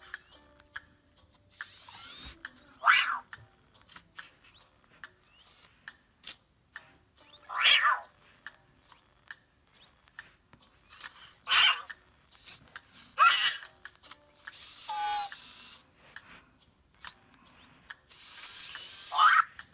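Anki Cozmo toy robot making short electronic chirps and warbling calls, about six of them, one a wavering trill. Between the calls come the clicking and whirring of its small motors and gears as it drives its treads and works its lift arm on the cubes.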